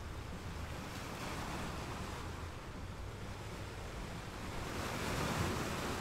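Sea waves washing, an even rush of water noise that swells about a second in and again, more loudly, near the end.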